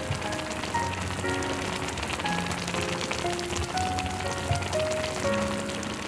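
A large pot of kimchi and pork-bone stew bubbling on the boil, a dense crackle of popping bubbles, under background music of slow held notes.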